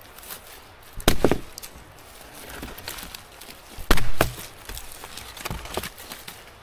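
Chopping blows on wood: two pairs of sharp strikes, one about a second in and another about four seconds in, with lighter knocks between.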